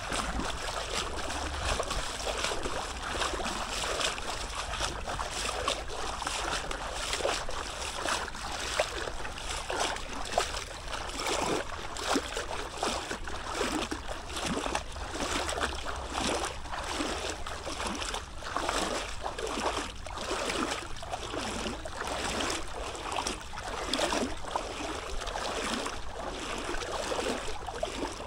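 Fast-flowing floodwater rushing and splashing, a steady, irregularly churning noise with a constant deep rumble underneath.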